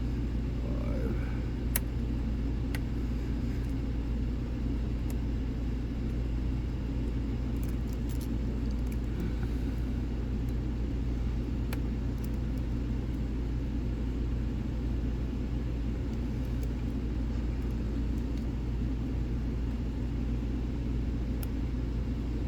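Steady low background rumble, with a few faint sharp clicks scattered through it: a hook pick and tension wrench working the pin stacks of a lock.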